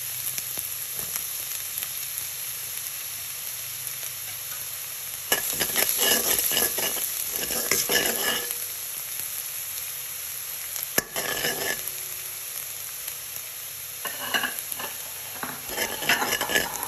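Finely chopped garlic sizzling in hot olive oil in a stainless steel wok, with a metal spoon scraping and stirring it through the oil in several spells from about a third of the way in, and one sharp click of the spoon against the pan.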